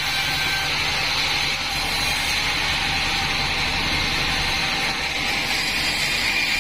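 Band sawmill running steadily, its blade sawing through a mahogany log, with a constant high whine over a hissing cutting noise and a low motor rumble.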